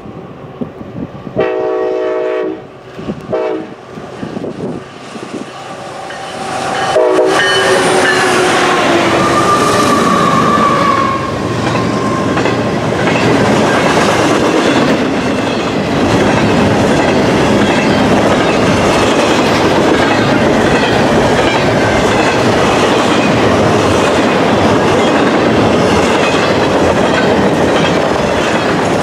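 Union Pacific diesel locomotive sounding its horn as it approaches: a long blast, a short one, then a final blast that slides down in pitch as the locomotive passes. A double-stack intermodal container train then rolls by with steady wheel clatter and rumble.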